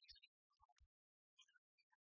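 Near silence, broken by faint, choppy scraps of sound.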